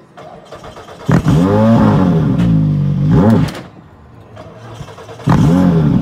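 Skoda Fabia R5 rally car's turbocharged four-cylinder engine revving loudly in two bursts, the pitch rising and dipping within each, while the car is nearly at a standstill on a hairpin. The first burst starts about a second in and lasts over two seconds; the second starts near the end.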